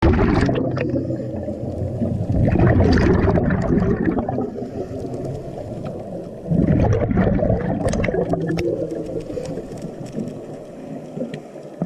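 Underwater bubbling and gurgling that swells in a surge about every four seconds, typical of a diver's exhaled breath, with faint clicks and scrapes between the surges.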